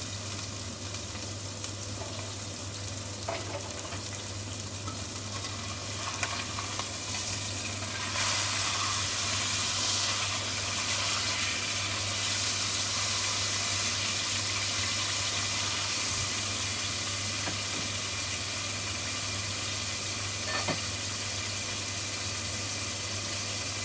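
A beef steak sizzling in olive oil in a nonstick pan: a steady frying hiss that grows louder about eight seconds in, once the steak is turned.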